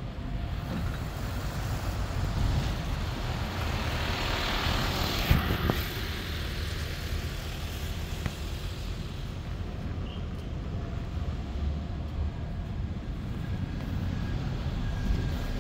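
Bus passing on a city street: low engine rumble with tyre and road noise that swells to a peak about five seconds in, then fades.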